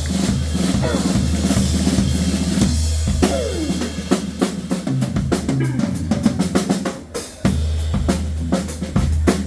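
Live band music led by a drum kit: rapid snare and bass-drum hits over sustained low bass notes, with a short break about seven seconds in before the groove comes back.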